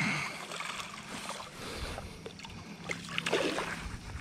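Shallow river water sloshing and splashing around a hooked trout being played close in, with a sharp splash at the start and a few more splashes about three seconds in.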